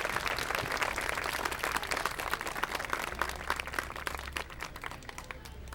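Crowd applauding with dense hand-clapping that thins out and dies away near the end.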